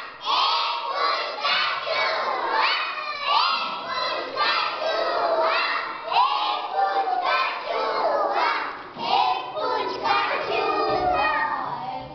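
A crowd of young children shouting together, many high voices overlapping without a break.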